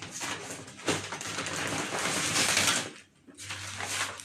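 Rustling and handling noise of packaged shopping items being moved and unpacked, running for about three seconds, pausing briefly, then starting again near the end.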